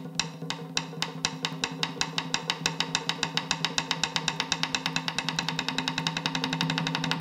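Music: a percussion beat whose strikes quicken steadily into a fast roll, over a low steady drone.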